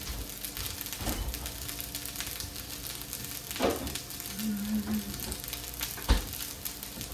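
Fried rice with smoked salmon sizzling in a hot pan, left to sit and crisp on the bottom, with steady fine crackling. A few knocks sound over it, the loudest about six seconds in.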